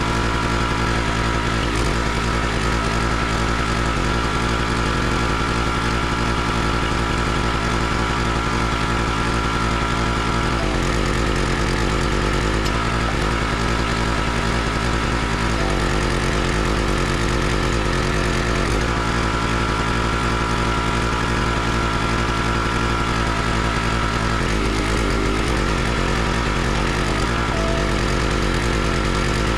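Gas engine of a Country Line 32-ton log splitter running steadily. Its tone shifts several times as the hydraulic pump takes load, with the ram pushing through and splitting a log.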